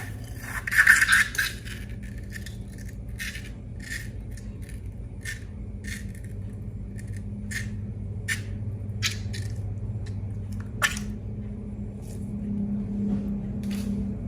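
Irregular sharp clicks and crackles, most likely from slime being handled and squeezed, with a louder burst about a second in, over a steady low hum.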